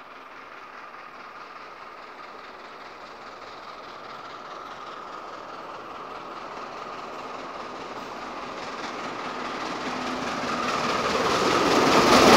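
ŽSR class 556.0 2-10-0 steam locomotive No. 556.036 approaching with its passenger train, the sound growing steadily louder until it passes close by near the end.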